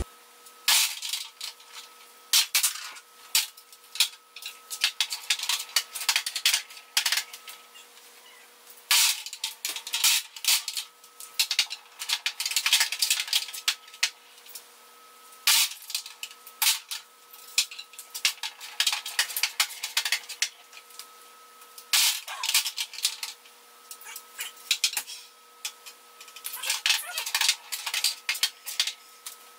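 Wooden table-skittles pins knocked down by a swinging ball on a string, clattering against each other and the tray, then being stood back up with small wooden clicks and knocks. The clatter comes in repeated clusters over a faint steady hum.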